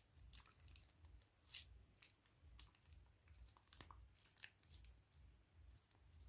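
Faint, irregular crackles and crinkles as slime-making materials are handled: small clicks and pops coming a few times a second at uneven intervals.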